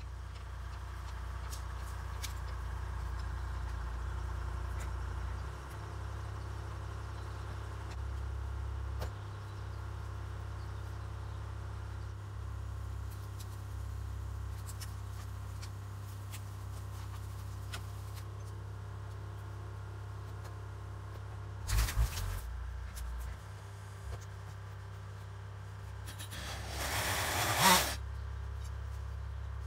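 Toyota Land Cruiser FJ80's petrol straight-six engine running, louder over the first few seconds as the truck pulls up, then idling steadily. A few sharp knocks about 22 seconds in, and a short scraping rustle near the end, the loudest sound.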